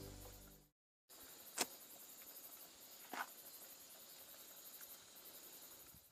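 Intro music fading out within the first second and breaking off. Then faint outdoor ambience of insects chirping high and steady, with two sharp clicks, about a second and a half in and again about three seconds in.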